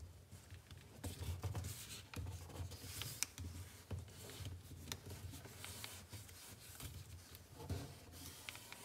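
A sheet of paper being folded and creased by hand on a tabletop: irregular rustling and rubbing as fingers press and slide along the folds, with a few sharp paper crackles.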